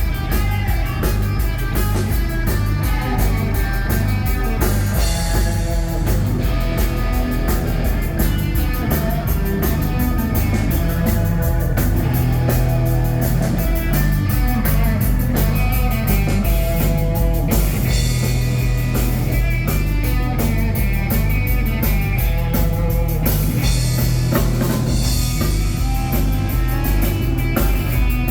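Live rock band playing an instrumental passage: electric guitar over a steady drum kit beat and bass, with no singing.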